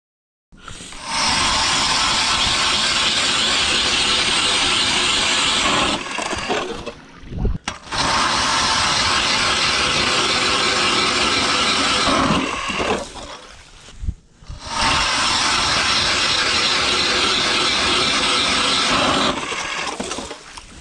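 Battery-powered ION electric ice auger drilling through lake ice, run three times for about five seconds each, winding down in a falling whine after each run.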